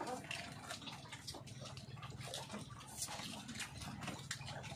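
People eating boiled shrimp and crab with bare hands: shells cracking, chewing and lip-smacking, heard as many small irregular clicks and smacks, over a low steady hum.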